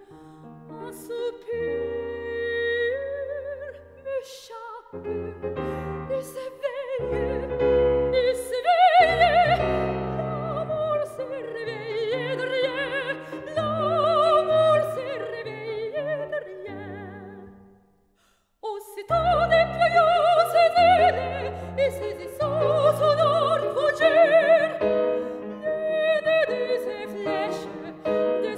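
Background music: classical, operatic singing with a wavering vibrato over piano accompaniment. It breaks off for under a second about two-thirds of the way through, then starts again.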